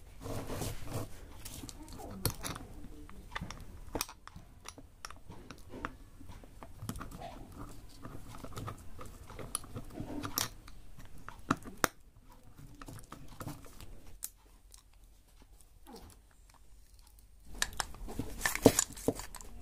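Scattered small clicks, scrapes and knocks of a Bajaj Pulsar starter motor being handled and its end cap pressed back onto the housing by hand. Near the end comes a burst of louder metallic clicks as pliers grip the motor's shaft end.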